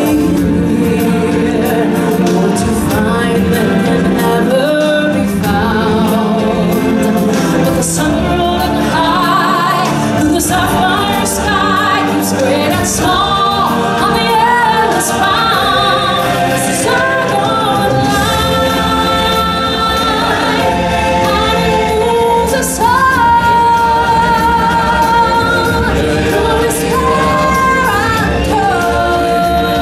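A female lead singer singing long, held melodic notes into a microphone, backed by a choir and music.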